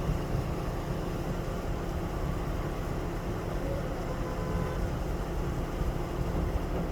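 Motor vehicle engine running steadily, a low rumble with a faint hum.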